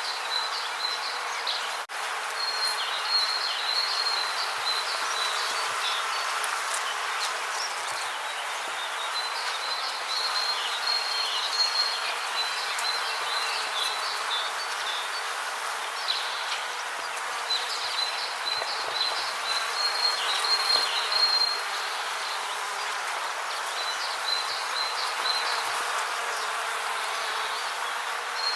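Rainforest ambience: a steady hiss under high-pitched insect trilling that comes in bouts of a few seconds, with short pauses between them.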